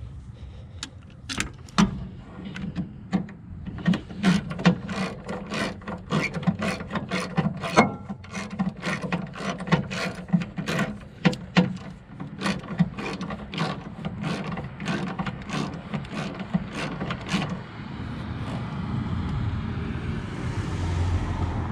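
Hand ratchet wrench clicking in short irregular runs, a few clicks a second. The clicking stops after about seventeen seconds, and a steady rushing noise follows.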